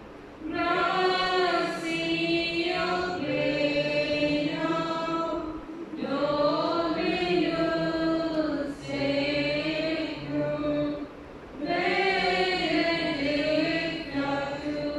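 Group of voices singing a hymn in long phrases, with short breaks between phrases about 6, 9 and 11 seconds in.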